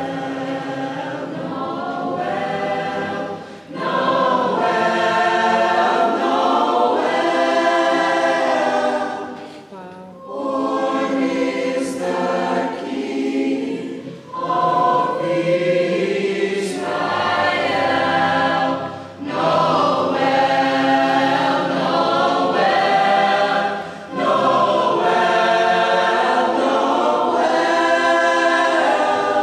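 Children's school choir singing a Christmas carol together, in sung phrases a few seconds long with brief pauses between them.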